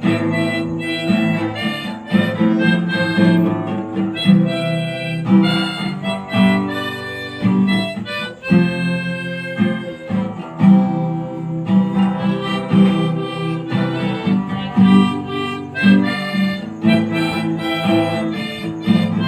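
Harmonica playing a tune in sustained chords and notes, with acoustic guitar strummed along.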